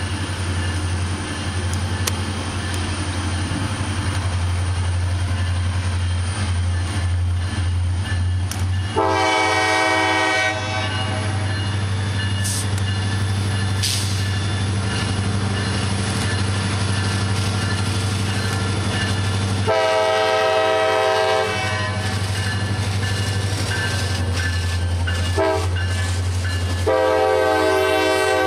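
CSX diesel locomotive hauling a freight train sounds its air horn in the grade-crossing pattern: long, long, short, long. A steady low rumble runs underneath the horn as the train approaches.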